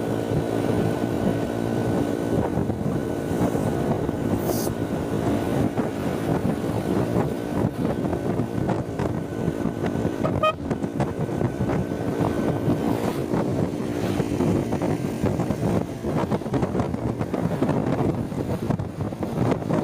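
Motorcycle running on the road, a steady engine hum mixed with wind rumbling on the microphone. The engine tone fades into the wind noise about two thirds of the way through.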